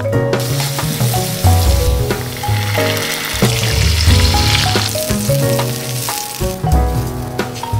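Hot chili oil sizzling hard in a stainless steel pan as chili paste and then water go into it, the sizzle fading out near the end. Background music with a bass beat plays throughout.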